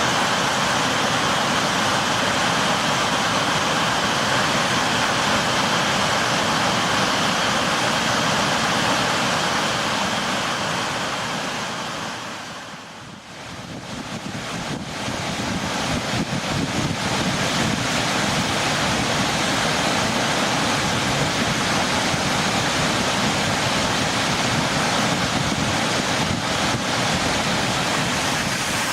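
Steady rushing roar of a large volume of flood water released from Maruyama Dam's spillway. It dips briefly about halfway through and then comes back.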